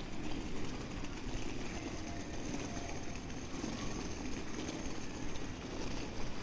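Steady rumble of a car's engine and running noise, even throughout.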